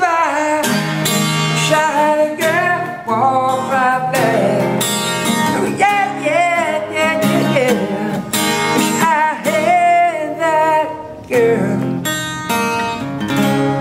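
Acoustic guitar being strummed and picked in a bluesy rock song, with a man's voice singing wavering notes over it. The player calls the guitar way out of tune.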